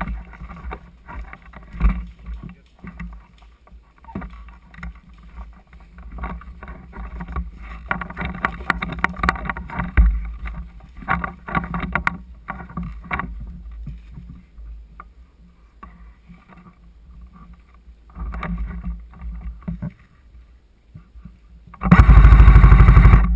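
Scattered rustling and knocks, then near the end one loud burst of rapid, evenly spaced fire from an airsoft gun on full auto, lasting about a second and a half.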